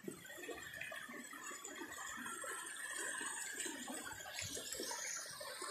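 Rain-swollen muddy river flowing past a jam of floating plastic, a faint steady rush of water with some irregular gurgling.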